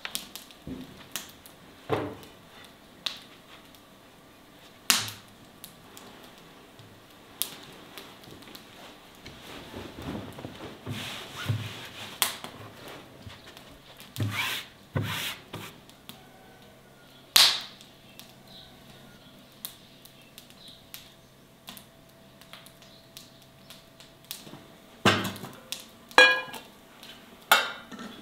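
Irregular knocks, taps and clatters of hand work in food preparation, with a few louder sharp knocks spread unevenly through.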